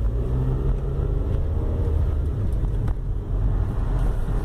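2004 Honda Civic on the move, heard from inside the cabin: steady engine hum and road rumble, with a brief click about three seconds in.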